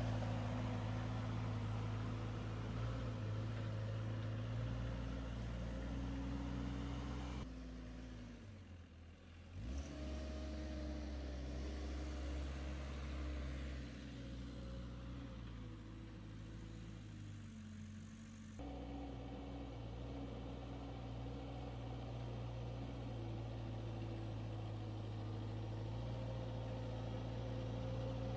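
Truck-mounted forklift's engine running steadily while it drives with a stack of lumber on its forks. It fades briefly about eight seconds in, then revs back up.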